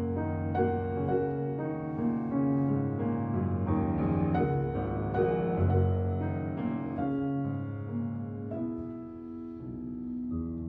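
Background solo piano music: slow piano notes, softening for a moment near the end.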